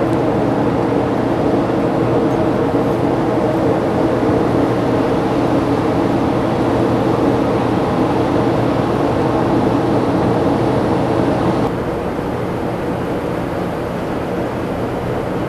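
Steady drone of ship engines with a constant low hum, dropping a little in level about twelve seconds in.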